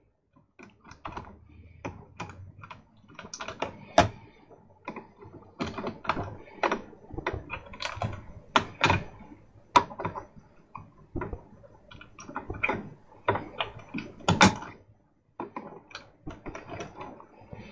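Needle-nose pliers and stranded wire clicking and tapping against a terminal post and the metal chassis of a CD player as the wire strands are wrapped tightly around the post. Irregular small clicks, with a few louder knocks.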